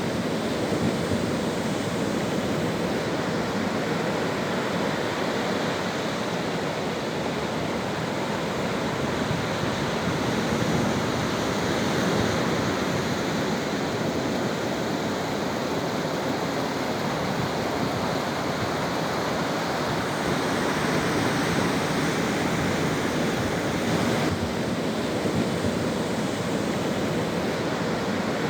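Sea waves washing onto a beach: a steady rush of surf that swells and eases slowly.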